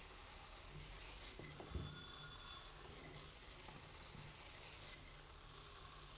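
Rice grains pouring in a thin stream from a swinging cone onto a floor of rice and into small ceramic bowls: a steady, faint hissing patter, with brief high ringing tones from the bowls now and then. A soft thump comes a little under two seconds in.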